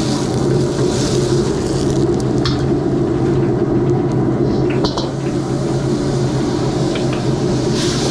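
Gas wok burner running steadily with food sizzling in a steel wok, and a metal ladle scraping and clinking against the wok a few times.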